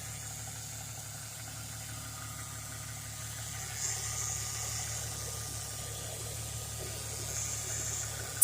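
Ford Mustang (SN95) engine idling steadily and smoothly, without rocking, heard with the hood open. A sharp click comes right at the end.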